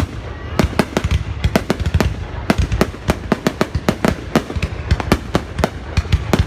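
Fireworks going off in a dense, irregular barrage: many sharp bangs and cracks, several a second, over a continuous low rumble.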